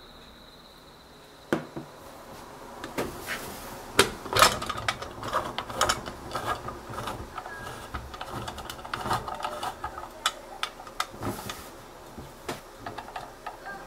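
A faint steady high tone for about the first second and a half. Then irregular clicks, knocks and clatter of kitchen things being handled, loudest around four seconds in.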